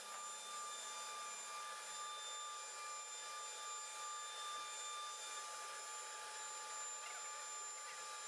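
Stepper motors of an ATS-0609 desktop CNC router whining faintly as the gantry is jogged along its axes during the machine's first test moves, with no spindle running. The whine is a few steady high tones, some of which stop about five seconds in.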